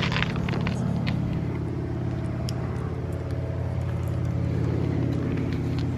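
A car engine idling steadily at an even pitch, with a few faint clicks over it.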